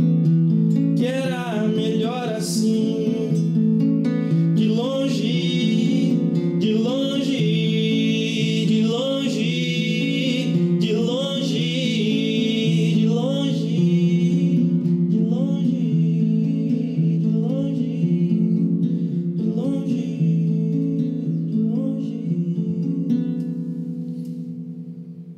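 A man singing to his own acoustic guitar. The music fades out near the end.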